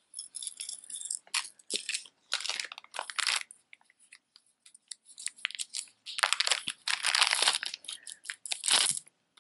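Thin plastic bag crinkling in the hands as it is opened, in short bursts, with a longer, louder stretch about six seconds in.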